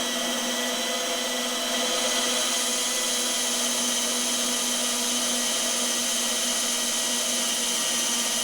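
Electric drill with a 4 mm bit running steadily, drilling a pilot hole through a whisky barrel's hoop. It is one continuous motor whine that holds its pitch throughout.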